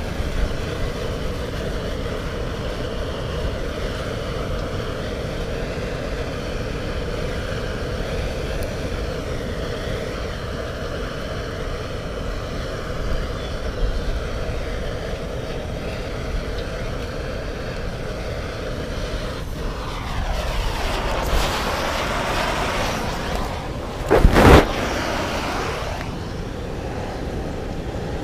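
Gas blowtorch on a screw-on canister burning steadily, its flame held to damp kindling to light a fire. Near the end a broader rush of noise comes in, with one short, much louder burst.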